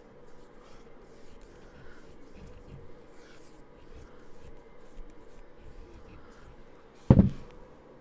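Soft paintbrush working paint onto the sides of a wooden panel: a run of light, quick scratchy brush strokes, with one loud thump about seven seconds in.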